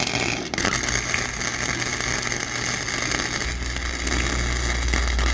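Flux-core wire-feed welder arc crackling and sputtering steadily as a bead is laid on eighth-inch steel at the maximum setting. A low hum grows stronger about three and a half seconds in.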